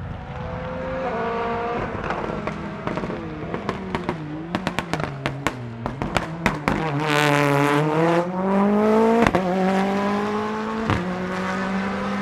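Rally car engine through a corner. The revs fall as it slows, then a rapid string of sharp bangs and crackles comes from the exhaust around the middle. After that the revs rise steadily as it accelerates away, with gear changes about nine and eleven seconds in.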